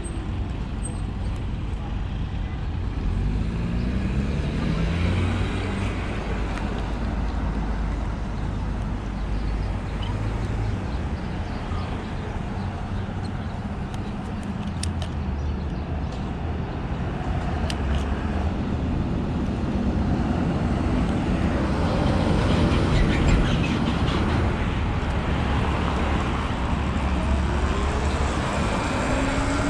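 Riding a Sur Ron electric dirt bike through city traffic: a steady low road rumble and traffic noise, with a pitch rising a few times as speed picks up.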